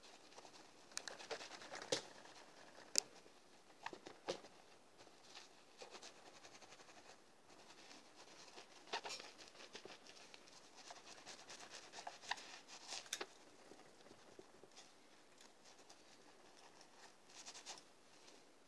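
Microfiber cloth wiping a guitar's body and pickguard: faint rubbing and rustling broken by scattered light clicks and taps, the sharpest about three seconds in.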